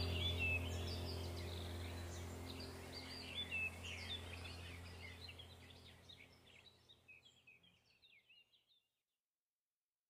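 Birds chirping over a low steady drone, both fading out gradually to silence about three-quarters of the way through.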